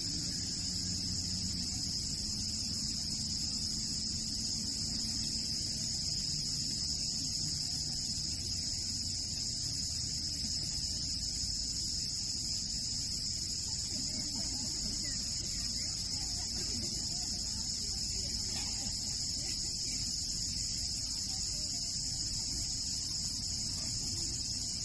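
Steady, unbroken high-pitched chorus of summer cicadas singing, over a low continuous rumble.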